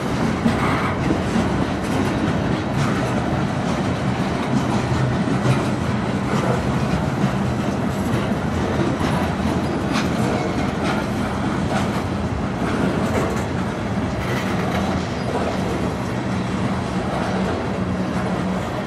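Freight cars rolling past on steel wheels: a steady rumble of wheels on rail with an occasional sharp click.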